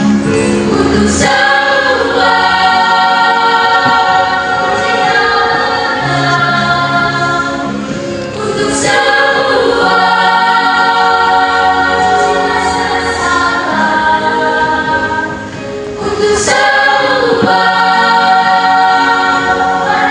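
Junior high school choir singing in several parts, long held chords with low and high voices together. The phrases break off briefly about a second in, near nine seconds and again around sixteen seconds in.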